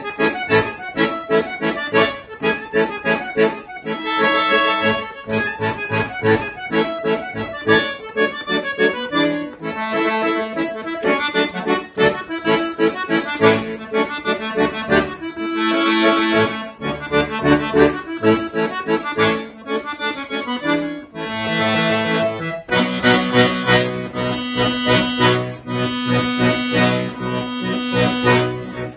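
Solo accordion playing quick runs of notes over the bass. For the last six seconds or so it settles into held chords over a sustained bass note.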